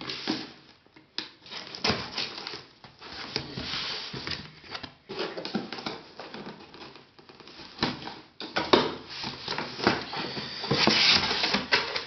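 Cardboard box being opened and handled: irregular rustling, scraping and small knocks, louder from about eight seconds in.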